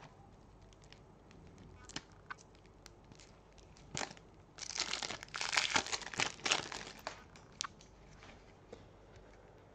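Plastic shrink-wrap crinkling and tearing as it is stripped off a deck of game cards, for about two seconds in the middle, after a few light taps of cards being handled.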